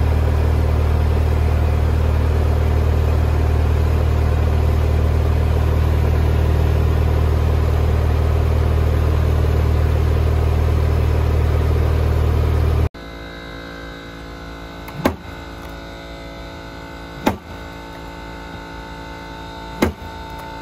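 A loud, steady low mechanical drone runs for about the first thirteen seconds and then cuts off abruptly. After that a quieter steady hum remains, broken by three sharp knocks about two to two and a half seconds apart as an LED whip rod is struck against a bollard.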